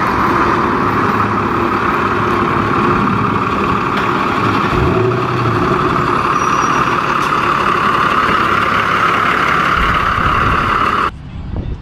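Custom pickup truck driving slowly past, its engine running under a steady, loud rushing hiss, with a brief rise in engine pitch about halfway through. The sound cuts off abruptly near the end.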